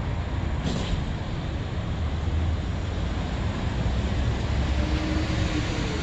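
Steady street traffic noise with a heavy low rumble.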